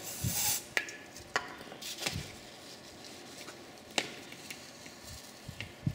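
Shop rag rubbing and rustling around the slider-pin bore of a rear brake caliper carrier, with a few light knocks as the metal part is handled.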